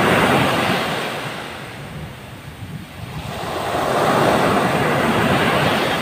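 Ocean waves washing onto the shore. A surge at the start fades away, then a second wave swells up about four seconds in and begins to recede near the end.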